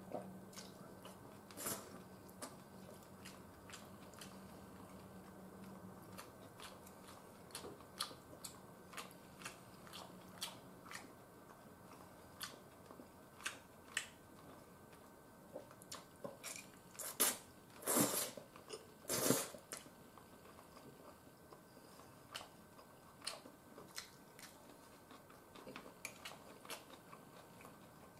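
A person eating stir-fried udon noodles with chopsticks: quiet chewing and scattered small clicks, with a louder run of slurping bursts a little past the middle.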